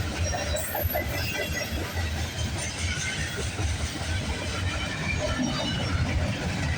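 Freight train cars rolling past on the rails, a steady low rumble with faint, thin wheel squeals now and then.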